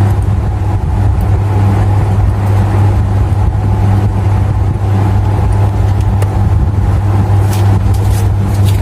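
A steady, loud low hum with a few faint clicks near the end.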